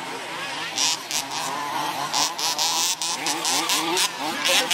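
Several radio-controlled 2WD off-road buggies racing at once, their motors rising and falling in pitch as they accelerate and brake around the dirt track. Short hissy bursts come and go over the motor whine.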